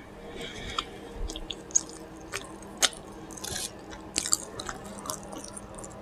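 A person chewing a soft burrito close to the microphone, with scattered wet mouth smacks and clicks every half second or so.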